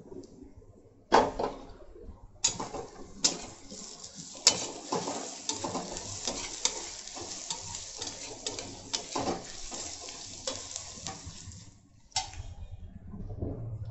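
A metal spatula scraping and clicking against a metal kadhai as chopped onions are stirred, with the onions frying in oil with a steady sizzle. The stirring starts about a second in and stops near the end.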